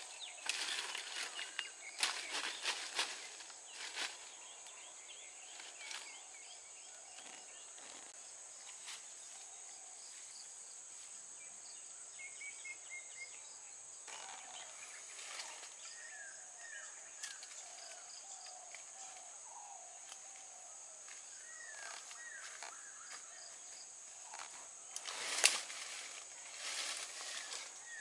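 Steady high drone of insects with birds chirping, over intermittent wooden knocks and leafy rustling as freshly cut cinnamon stems are handled, bundled and trimmed; the sharpest knock comes near the end.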